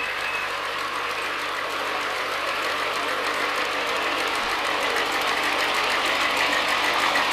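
Miniature steam locomotive hauling a riding train past close by: a steady hiss of steam with rapid exhaust chuffs, growing a little louder as it nears.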